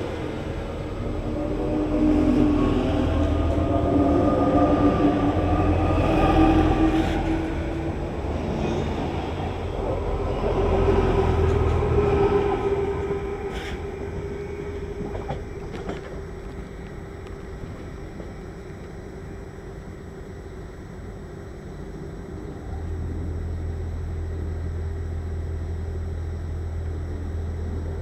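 Double-deck RER electric train (Z 8800 and Z 20900 units) pulling out of a station. Its traction motors whine in several rising tones as it accelerates past, over the rumble of the wheels, and the sound then fades as it draws away, with a few short clicks. Near the end a steady low hum comes in.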